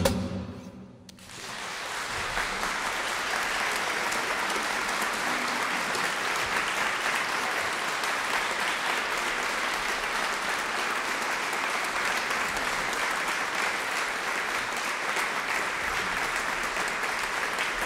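The final strummed chord of a classical guitar dies away, and about a second later an audience breaks into steady applause that carries on.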